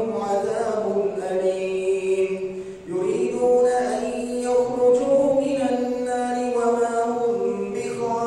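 A man's voice chanting a Quran recitation in Arabic during Taraweeh prayer, with long, melodic held notes. He pauses briefly for breath just under three seconds in.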